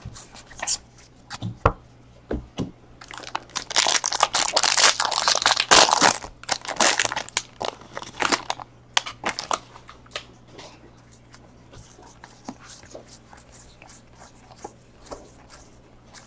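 Foil wrapper of a Bowman Draft baseball card pack being torn open and crinkled: a dense crackling burst lasting about three seconds, a few seconds in. Then scattered light clicks and rustles as the cards are handled.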